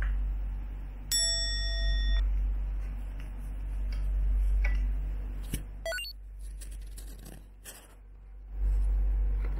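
A bell-like ding sound effect rings for about a second, a clear pitched chime with overtones, over a low steady hum. A short rising chirp follows about six seconds in, and the hum drops out for a couple of seconds near the end before it returns.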